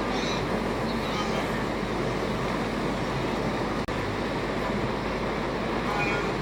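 Wildebeest and zebras crossing the Mara River, a steady rushing noise of splashing water and hooves, with a few faint high calls.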